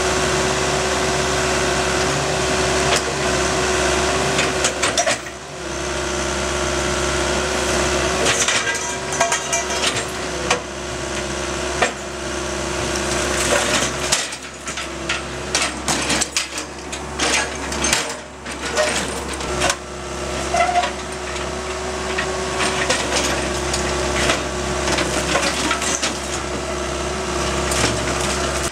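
Construction-site knocking and clattering, with many irregular sharp knocks over a steady mechanical hum.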